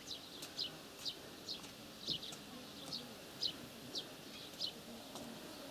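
A bird giving short, high chirps, roughly two a second, faint against a quiet open-air background.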